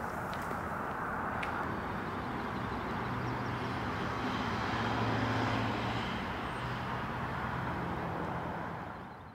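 Steady rumble of a distant motor vehicle's engine, with a low hum that swells about halfway through and fades near the end. A couple of faint running footsteps on asphalt are heard at the start.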